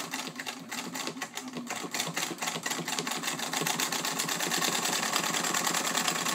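Singer 66 straight lock-stitch sewing machine, driven by its electric motor, stitching steadily through five layers of denim with rolled seams: a fast, even clatter of needle strokes over a low motor hum.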